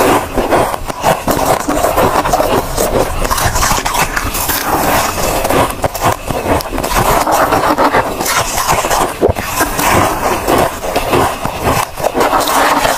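Mouthfuls of soft, pink-flavoured freezer frost ice being chewed: a dense, continuous run of crisp crunching and crackling.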